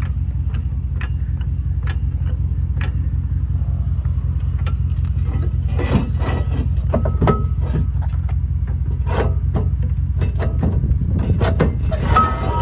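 Car engine idling steadily, with scattered light clicks and clatter of handling around it, busier from about halfway through.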